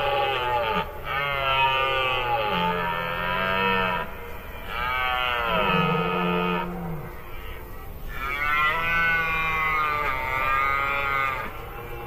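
Red deer stags roaring in the rut: a series of long, hoarse bellows, each lasting two to three seconds, with short pauses between them.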